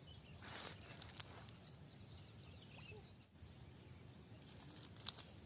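Faint outdoor ambience: a steady, high-pitched chirring of insects, with a few small sharp clicks.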